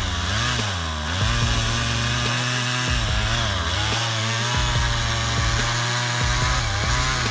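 A powered machine's engine running under load, its pitch dipping and rising back again several times.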